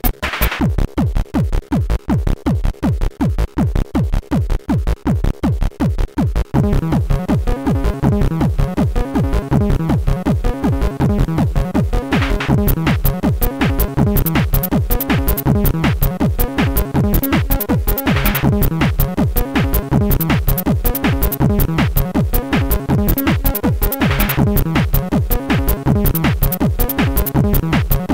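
Synthesized electronic music of a 4k demoscene intro: a fast, steady kick-drum beat, joined about six and a half seconds in by a fuller bass line and held chords, with a rising noise swell roughly every six seconds.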